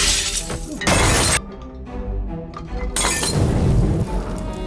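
Glass shattering in loud crashes: two back to back in the first second and a half, then another about three seconds in, over a dramatic orchestral film score.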